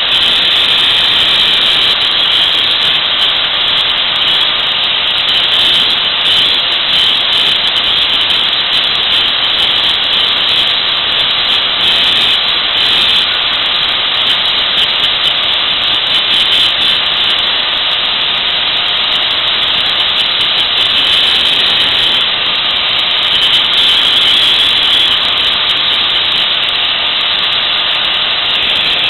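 Angle grinder with a thin cut-off wheel running steadily against metal, grinding old metal off a chair pedestal's shaft mount down to a clean surface for welding.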